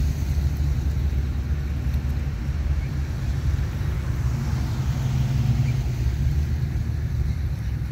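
Classic cars driving slowly past in a cruise, their engines giving a steady low rumble that swells a little about halfway through.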